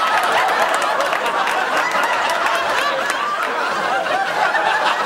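Studio audience laughing, many voices overlapping in a long, steady wave of laughter.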